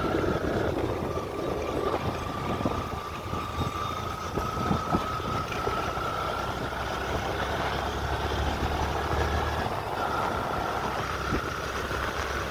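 Yamaha FZ V2 motorcycle's single-cylinder engine running while riding, over steady wind and road noise. A thin high whine rises slowly in pitch, drops out briefly about ten seconds in, then returns.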